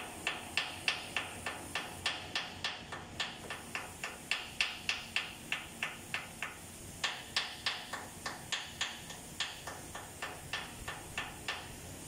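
Ball-peen hammer striking a chisel against the underside of a Cummins KTA50 engine block, metal on metal, about three to four quick strikes a second, chipping away to clean the block's lower face. The strikes pause briefly about halfway through, then carry on and stop just before the end.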